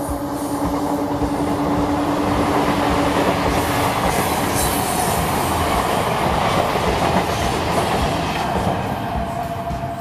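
Electric multiple unit (EMU) local train coaches running past at speed, the wheels clattering rhythmically over rail joints. The rumble builds toward the middle and eases near the end, and a steady hum stops about four seconds in.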